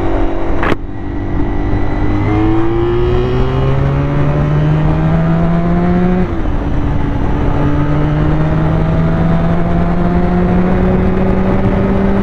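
Honda VFR400 NC30's V4 engine pulling under acceleration on freshly cleaned carburettors: its note rises steadily, drops about six seconds in as a gear is changed, then climbs again.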